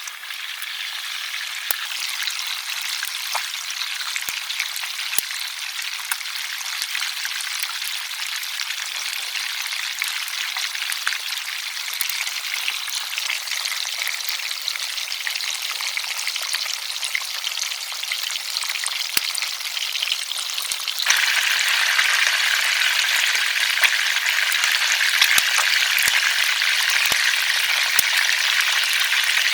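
Fish frying in hot oil: a steady sizzle with frequent sharp crackles and spits. About two-thirds of the way through, the sizzle turns suddenly louder and brighter.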